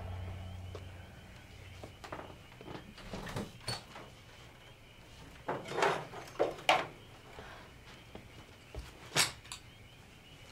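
Quiet room with a few soft knocks and rustles of someone handling things. There is a cluster of them about halfway through and one sharper knock near the end.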